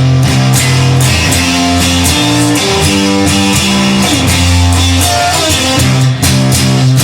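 Instrumental band music: guitar playing held and changing chords over a steady drum beat, without vocals.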